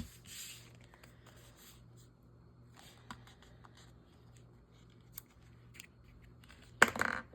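Scissors snipping paper, with light paper rustles and clicks, and a short louder burst of cutting and paper handling near the end.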